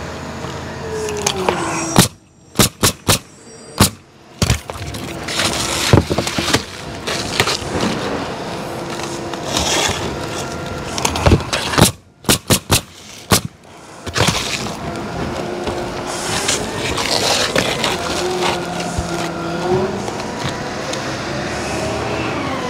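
Pneumatic coil roofing nailer firing nails through asphalt shingles in two quick bursts: about six shots about two seconds in, and about five more around twelve seconds in. Between the bursts there is a steady rumble of passing traffic and the rustle of shingles being handled.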